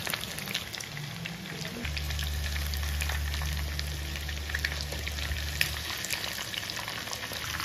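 Cornflour-and-maida-coated chicken pieces deep-frying in hot oil, a steady sizzle full of fine crackles as a wire spider strainer is moved through them. A low steady hum comes in from about two to six seconds in.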